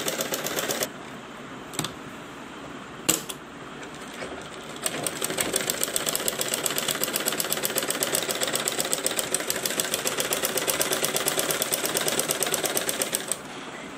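Sewing machine stitching a blouse piece to its lining in quick, even strokes. It runs for about a second and stops, two sharp clicks follow, and then it stitches steadily for about eight seconds before stopping shortly before the end.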